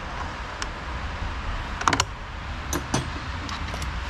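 A handful of short metallic clicks from a small flat spanner working the nut on a car battery's negative terminal clamp, the loudest about two seconds in. A low steady rumble runs underneath.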